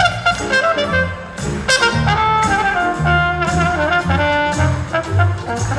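Live band music led by a horn section playing a melody line over bass and drums.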